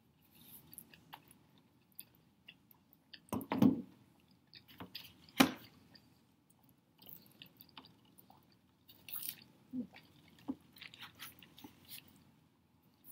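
A person chewing a mouthful of soft beef burger, with wet mouth clicks and smacks, and taking another bite near the end. Two louder knocks stand out, about three and a half and five and a half seconds in.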